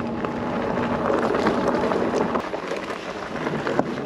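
Himiway Cruiser fat-tyre e-bike rolling over a rough surface: a steady rushing noise from the tyres, dotted with small crackles and ticks.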